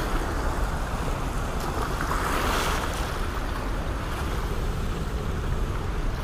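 Rushing whitewater pouring out of an open dam, a steady dense roar, growing briefly brighter and louder a little over two seconds in, with wind buffeting the microphone.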